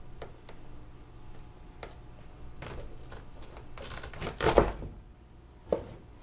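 A few light knocks, then a louder scraping crunch about four seconds in and a sharp knock near the end: a large kitchen knife cutting into and handling a spaghetti squash.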